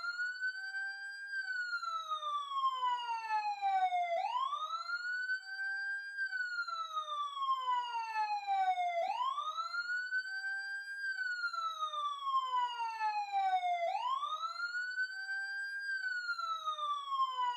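Ambulance siren sounding a slow wail. The pitch sweeps up over about two seconds, then slides down over about three, over and over without a break.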